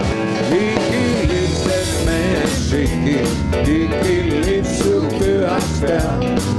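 Music: a rock song with guitar and a singing voice.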